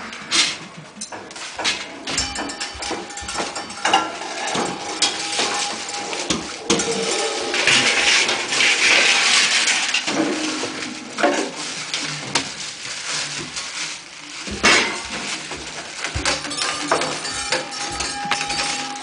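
Improvised metallic percussion from a sound sculpture of bicycle wheels, rims and metal parts: many clinks, knocks and scrapes of metal on metal. A hissing, rushing wash comes about eight seconds in, a hard knock near fifteen seconds, and a steady ringing tone near the end.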